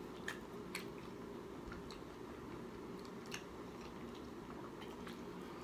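Faint chewing and mouth sounds of a person eating barbecue, with a few small clicks scattered through.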